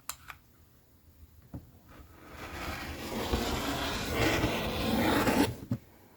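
Rotary cutter drawn along a ruler through a stack of fabric: one continuous scraping cut of about three seconds that starts about two seconds in and stops abruptly. The cutter's blade is getting dull.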